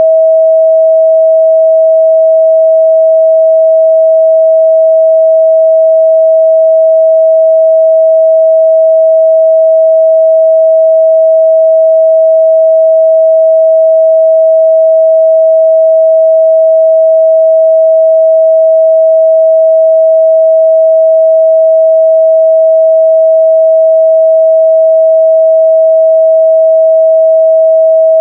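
A pure 644 Hz sine-wave test tone, held steady and loud with no change in pitch or level.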